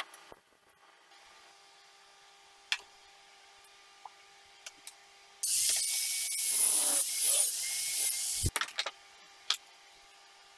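Angle grinder with a thin cutting disc cutting through the steel mounting eye of a car shock absorber: about three seconds of loud, high-pitched grinding with a whine, starting about five seconds in. A single sharp knock follows right after the cut, with a few light clicks and taps before and after.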